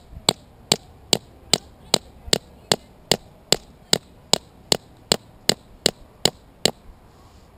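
A TOPS XcEST Alpha fixed-blade knife used as a hammer, knocking on the top of a wooden stake to drive it into the ground. There is a steady run of sharp wooden knocks, about two and a half a second, which stop about a second before the end.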